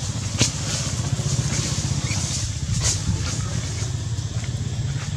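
An engine running steadily, a low pulsing hum, with a couple of sharp clicks.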